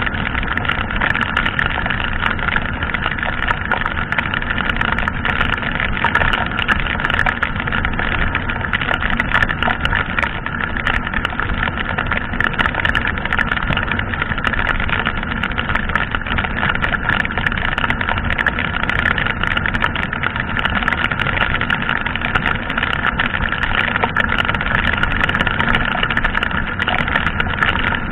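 Yamaha sport motorcycle cruising at a steady speed of about 65–70 km/h on a wet road: the engine runs evenly under a constant rush of wind and wet-road noise, with no change in revs.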